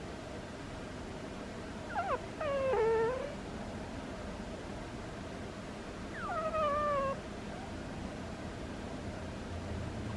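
A sleeping cat's squeaky snores. A short squeak about two seconds in runs into a longer high squeak that falls in pitch and levels off, and another like it comes about four seconds later.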